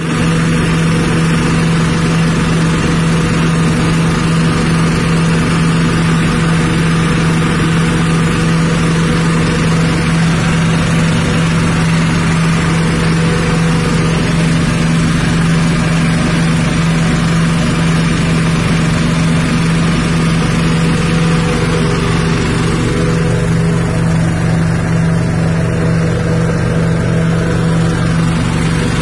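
Small 6.5 hp single-cylinder petrol engine running at a steady speed, driving a rice-husk grinding mill, with a strong even hum.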